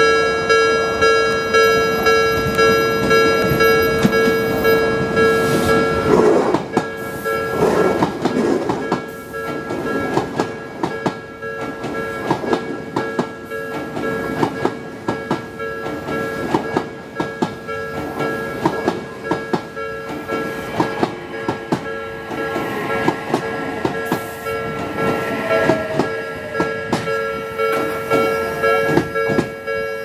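Japanese level-crossing alarm ringing its repeated electronic ding, about one and a half strikes a second. From about six seconds in, an Odakyu 3000-series electric train rolls slowly past close by, its wheels clacking irregularly over rail joints as it pulls into the station.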